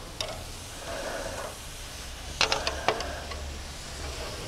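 Metal tongs and steel kabob skewers clinking against a gas grill's grate as beef shish kabobs are set down: one click near the start, then a quick run of sharp clacks about two and a half seconds in, over a low sizzle of meat on the hot grate.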